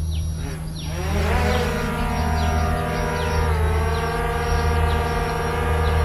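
DJI Mavic Air 2 quadcopter's motors spinning up about a second in with a rising whine, then running steadily on the ground just before lift-off, the pitch dipping briefly midway.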